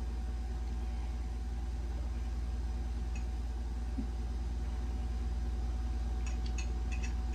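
Steady low hum, with a few quick faint clicks near the end.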